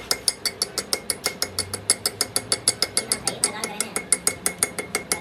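A metal hand tool tapping rapidly against a steel brake caliper pin clamped in a lathe chuck: a fast, even run of light metallic taps, about nine a second, each with a short bright ring.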